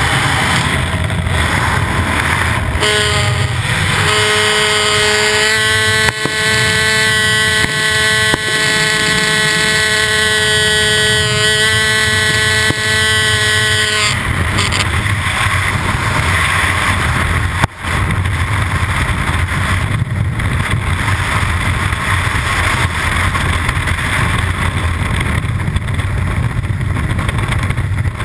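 Skydiving aircraft at the open door: engine and propeller drone with a steady tone over rushing wind. After about fourteen seconds the tone stops and a steady, loud rush of freefall wind on the helmet camera takes over.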